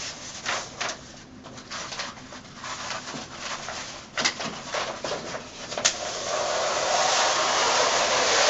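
Wax-paper backing being peeled off a peel-and-stick vinyl wall mural: crinkling rustles of the paper, then from about six seconds in one long, steady peeling hiss as the liner strips away from the adhesive.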